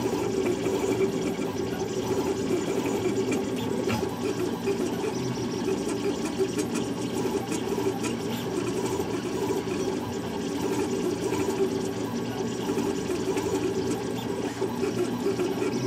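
Large gantry 3D printer running, its stepper motors whirring steadily as they drive the print head around the bed while it lays down filament.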